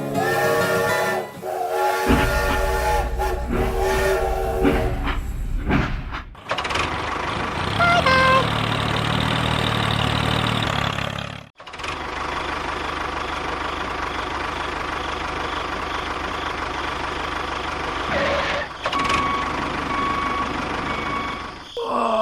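Small motors of the miniature tractor and bulldozer machines running, heard in several short edited clips, with a brief rising whine about eight seconds in.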